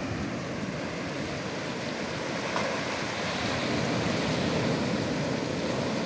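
Strong ocean surf breaking over a low rocky reef and washing across it in foam: a steady rush of whitewater that swells a little in the second half.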